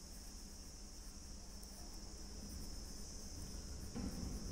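Faint, steady high-pitched chirring of crickets in the background over a low hum.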